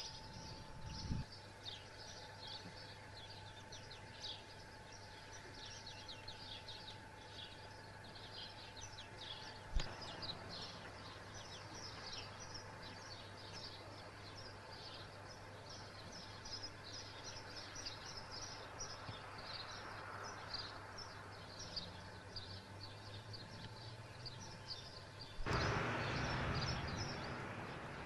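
Many small birds chirping continuously over outdoor background noise. A faint steady whine stops at a click about ten seconds in. Near the end a louder rush of noise swells suddenly and fades over a couple of seconds.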